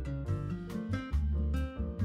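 Background music: plucked, guitar-like notes over a low bass line.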